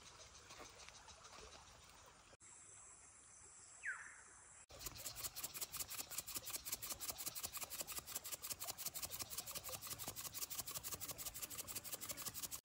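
Insects calling in a fast, even pulsing rhythm of many pulses a second, loud and high-pitched. It takes over after a fainter stretch that holds a single short falling chirp.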